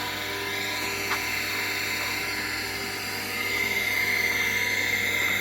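A motor-driven machine running steadily with a low hum, a higher whine growing louder about three seconds in.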